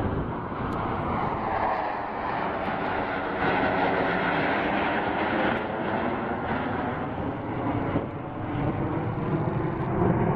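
Jet noise from Su-30SM fighters, each with twin AL-31FP afterburning turbofans, flying overhead. The noise is continuous and swells a little as the jets pass.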